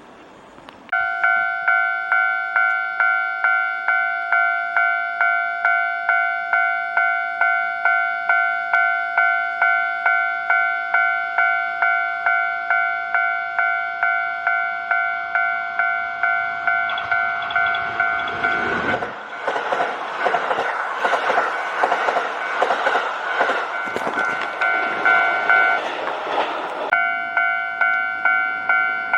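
Japanese railway level-crossing warning bell starting about a second in and ringing steadily at about two strikes a second. Well past the middle, a Kintetsu Osaka Line train passes over the crossing for several seconds, its rail noise and rush over the bell. The bell keeps ringing once the train has passed.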